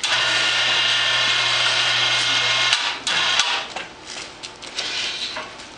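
A motor-driven machine starts abruptly and runs steadily with a low hum and hiss for under three seconds, then cuts off; a short burst of noise and scattered knocks follow.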